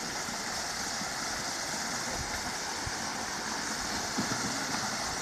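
Steady rush of shallow river water running over rocks.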